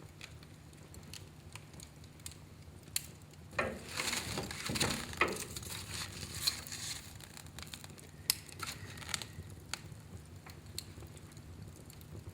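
Wood fire in a fireplace crackling with scattered sharp pops, and a denser, louder flurry of crackling about four seconds in.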